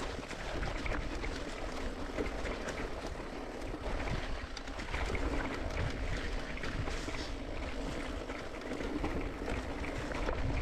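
Mountain bike ridden down a dirt singletrack: wind buffeting the microphone, tyres rolling over dirt and leaves, and the bike's small rattles and clicks.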